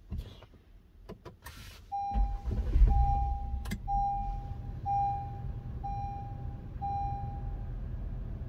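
A few clicks, then a car engine cranks and starts about two seconds in and settles into a steady idle. Six evenly spaced electronic beeps, about one a second, sound over the idle and stop near the end.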